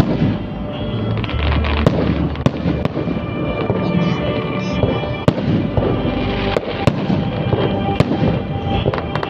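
Fireworks display: shells launching and bursting overhead, heard as repeated sharp bangs over a continuous rumble.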